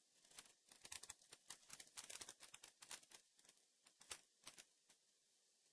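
Faint quick clicks and rustles of hands handling a LEGO minifigure pack and its small plastic parts, densest over the first three seconds and dying away after about four and a half.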